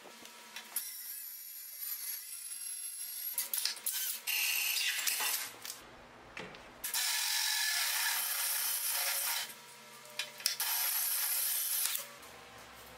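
Cordless drill boring through stainless steel sheet, grinding loudly in two runs of a few seconds each with a short pause between, and cutting off abruptly at the end. Shorter bursts of scraping and rubbing noise come before it.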